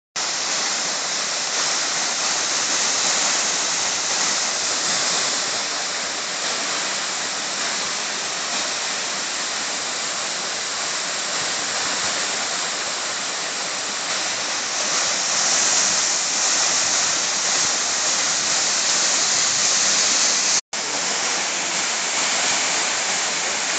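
Waterfall rushing, a steady full roar of falling water that cuts out for an instant once near the end.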